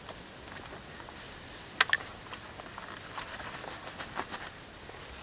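Metal utensil clicking against a small metal toasting rack as slices of bread are turned over a campfire: two sharp clicks close together about two seconds in, then a run of light ticks and crackles.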